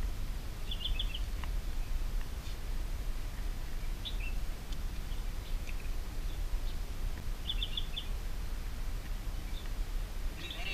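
Small birds chirping in short quick runs of high notes, about four times, over a steady low background rumble.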